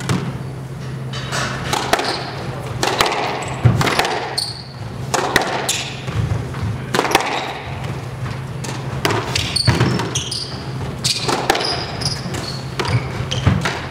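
A squash rally: the ball smacks off the rackets and the walls every second or so, with short shoe squeaks on the hardwood floor between the hits, over a steady low hum.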